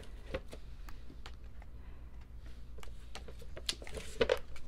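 Pages of an album photo book being turned and handled: scattered light paper clicks and rustles, with a denser cluster of them near the end.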